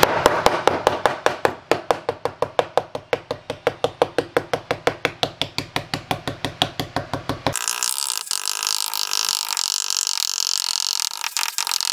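A hand tool rapidly jabbing the foil facing of Kilmat butyl sound-deadening mat, about six sharp taps a second, punching holes so the coating sprayed over it can grip. About seven seconds in, the tapping stops and a steady rasping noise takes over.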